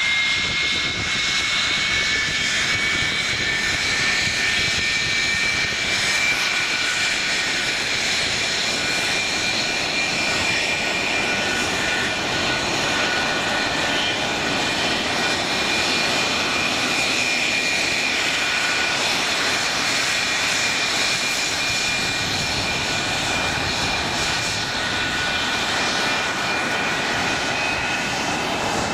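English Electric Lightning jet fighters taxiing, their Rolls-Royce Avon turbojets running at taxi power. The sound is a steady, high, layered whine that drifts slowly in pitch over a continuous rush of jet noise.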